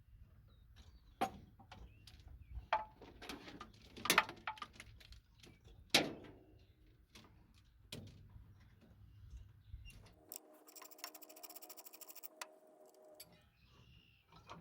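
Hand tools clinking and knocking on metal as engine accessories are unbolted, with sharp metal knocks about four and six seconds in. Near the end, about three seconds of fast, even ticking with a steady buzzing tone.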